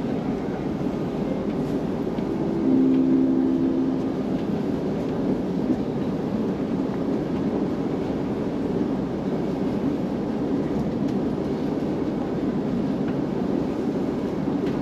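Electric commuter train running along the track, a steady rumble and rail noise heard from inside the carriage. About two seconds in, a steady low two-pitched tone sounds for about two seconds.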